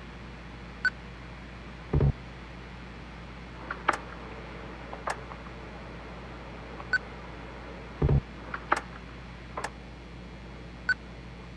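Scattered computer keyboard and mouse clicks over a steady low hum, mixed with a few short electronic blips. Two heavier low thuds come about two seconds in and again near eight seconds.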